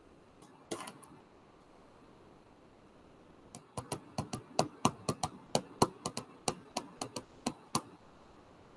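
A few sharp clicks about a second in, then a run of some eighteen sharp clicks or taps at an uneven pace, about four a second, stopping near the end.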